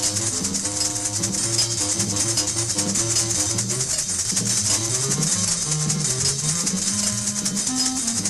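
Background music: a low, stepping melody over a steady, shaker-like high rattle.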